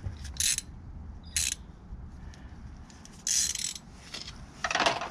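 A socket ratchet clicking in four short bursts.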